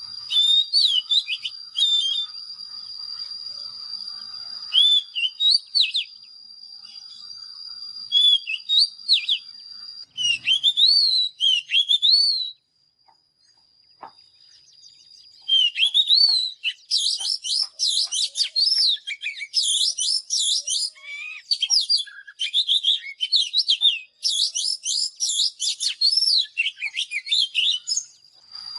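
Oriental magpie-robin singing: varied, clear whistled phrases of short gliding notes over a steady high tone. The song breaks off for a couple of seconds about halfway, then resumes as a fast, dense run of loud rising and falling whistles.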